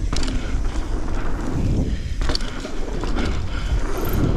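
Mountain bike being ridden through a dirt jump line: tyres rumbling on the dirt and wind buffeting the microphone, with a few sharp clatters from the bike, a pair just past two seconds in.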